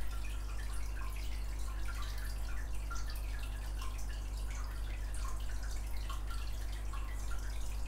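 Quiet background: a steady low electrical hum with faint, scattered short ticks.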